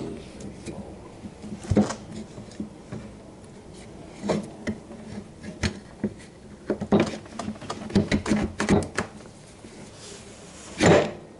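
Scattered knocks and clunks of a motorcycle's rear wheel, brake caliper bracket and axle spacer being shifted and fitted by gloved hands, with a louder thump near the end.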